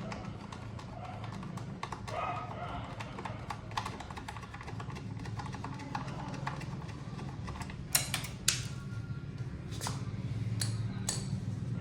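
Background music or a steady low hum, with a handful of sharp clicks and knocks between about eight and eleven seconds in. The clicks come from the tools and the clip-on plastic side cover of the motorcycle being handled.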